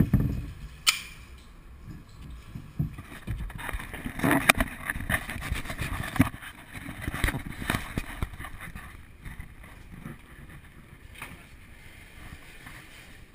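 Camera being handled and moved around: scattered knocks and clicks, then a few seconds of close rubbing, bumping and rustling against the microphone.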